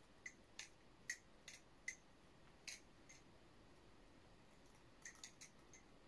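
Pink Atropos Cassowary 2 balisong being flipped, its swinging handles and blade giving short, sharp metallic clicks. About six separate clicks come over the first three seconds, then a quick cluster of clicks about five seconds in.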